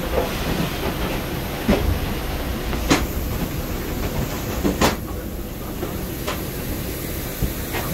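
Steady low rumble and hiss of an airliner at the gate, heard from the jet bridge and aircraft door during boarding, with a few sharp knocks; the hiss thins out about five seconds in.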